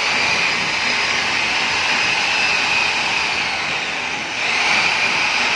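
A handheld electric power tool running steadily at full speed with a high, even whine.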